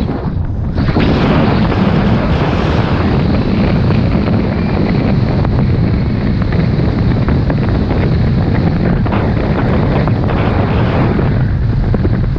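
Loud, steady wind buffeting a helmet or body camera's microphone on a fast snowboard run, mixed with the hiss of the board sliding through fresh powder snow. The noise thins briefly about half a second in.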